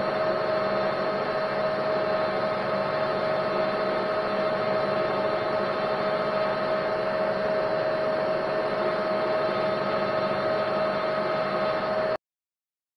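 Metal lathe running steadily with a constant whine while a pilot hole is drilled into the metal workpiece. The sound cuts off suddenly near the end.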